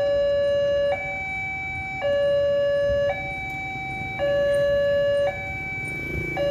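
Electronic warning alarm of an Indonesian railroad level crossing, barriers down for an approaching train. It sounds two notes in turn, a louder lower one and a softer higher one, each about a second long, repeating steadily.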